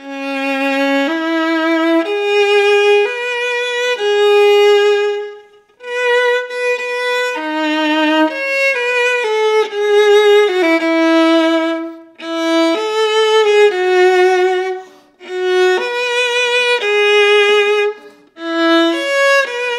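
Solo viola played with the bow: a melody of sustained, connected notes in several phrases broken by short gaps. Each note is begun with the bow already on the string and then drawn, so it starts cleanly without a bump, and the bow is lifted very little between notes.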